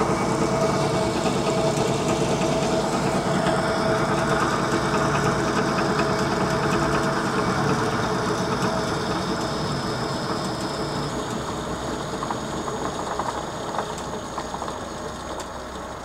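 Metal lathe running at a steady speed, its motor and gearing turning the chuck while a dial indicator checks the chuck for runout. The sound grows gradually quieter over the last several seconds.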